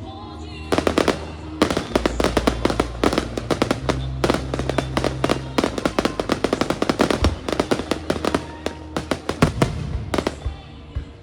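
Fireworks going off in a rapid, dense barrage of bangs and crackles, many per second, starting about a second in and thinning out near the end.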